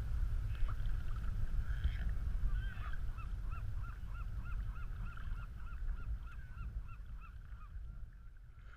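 A bird calling in a rapid run of short, repeated notes, about four a second, that fades out before the end, over a steady low rumble of wind and water.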